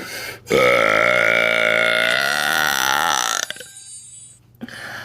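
A woman's loud, long belch made on command. It starts about half a second in and lasts about three seconds, holding a steady pitch that wobbles near the end.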